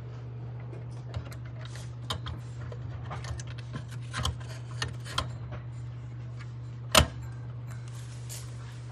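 Scattered small clicks and knocks as a KPA4 100-watt amplifier module with a finned heatsink is handled, lowered into the metal chassis of an Elecraft K4 transceiver and pressed onto its board sockets, with one sharper click about seven seconds in. A steady low hum runs underneath.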